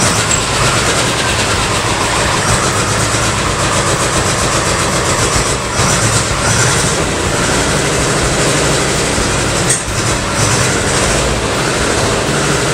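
Porsche 912's air-cooled Type 4 flat-four engine running steadily with a loud clattering note, with one short sharp click about ten seconds in.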